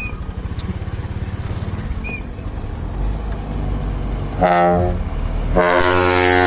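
Diesel dump truck engine running with a low, rhythmic rumble. About four and a half seconds in it gives a short blast on its trumpet air horn, then a second later a loud, sustained blast.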